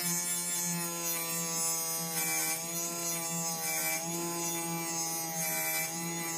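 Homemade mini table saw driven by a 775 DC motor, its blade cutting through an MDF board: a steady motor whine with the rasp of the cut. The pitch drops slightly about two seconds in as the blade takes load and comes back up about four seconds in.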